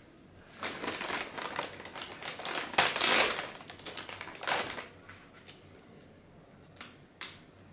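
Clear plastic bag around a car stereo head unit crinkling as it is handled and pulled at, loudest about three seconds in. A few short sharp clicks follow near the end.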